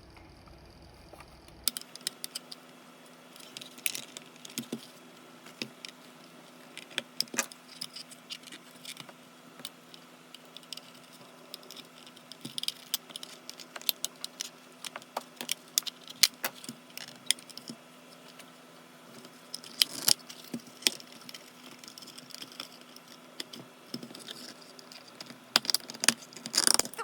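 Irregular clicks, taps and light rattling of small clock parts being handled and worked on, with a cluster of louder clicks near the end.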